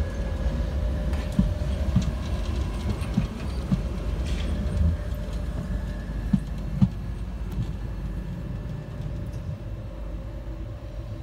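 Sheffield Supertram, a Siemens-Duewag articulated tram, pulling away and receding. A low rumble of steel wheels on rail runs under a steady whine, with a few sharp clunks in the first half, and the sound gradually fades towards the end.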